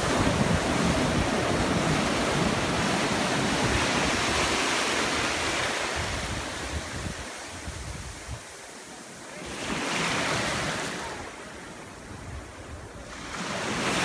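Ocean surf breaking and washing in right at the microphone, a loud rush of foaming water. It ebbs away about halfway through, swells briefly, then builds again as the next wave rolls in near the end.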